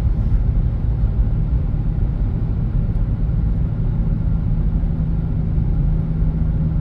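A 1996 Audi A6 C4 with its 2.8 V6 cruising, heard inside the cabin with the windows closed: a steady low rumble of engine and road noise.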